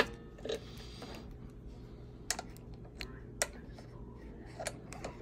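Scattered short metal clicks of a small ratchet and socket being fitted and worked on the ignition coil's mounting nut of a small engine, about one click a second, with a single sharp click at the very start the loudest.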